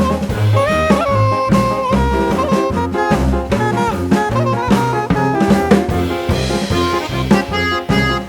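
Background music: an upbeat jazz-style track with a melody line over a steady drum and bass beat.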